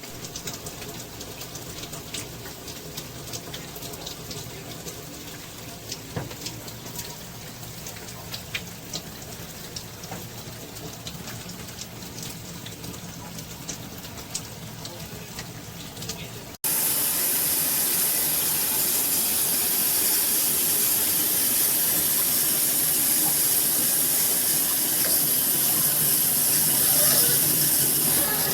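Water spraying from a SparkPod filtered shower head. First comes a moderate spatter with scattered small splashes. After a cut about two-thirds of the way in, it turns to a louder, steady hiss of spray.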